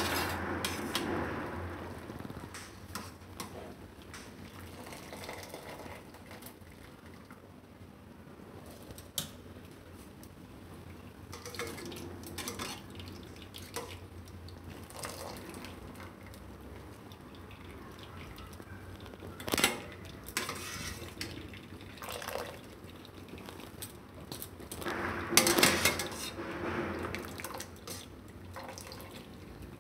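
Steel utensils clinking and knocking now and then against steel cookware as boiled spinach is lifted out of the pot with a slotted skimmer and dropped into a mesh strainer. Water drips and splashes with it. The loudest clatter comes about 25 seconds in, with a sharp knock a few seconds before.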